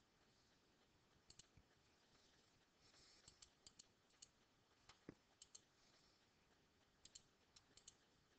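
Faint computer mouse clicks, irregular and often in quick pairs, as keys of a calculator emulator are clicked on screen, over quiet room tone.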